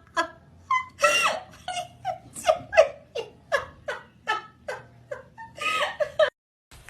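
A person laughing hard in a long run of short, falling "ha" pulses, about three a second, stopping abruptly near the end.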